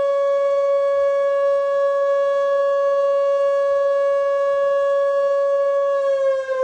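Electronic tsunami warning siren sounding a loud, steady single tone under test, which begins to slide slowly down in pitch near the end.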